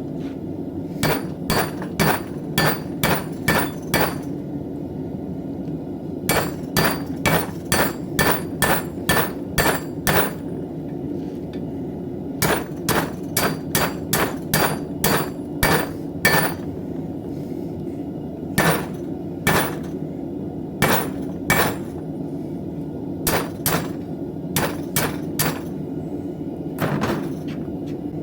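Hand hammer striking hot steel on an anvil while forging a knife blade: ringing blows about three a second, in runs of several strikes with short pauses between them, over a steady low background noise.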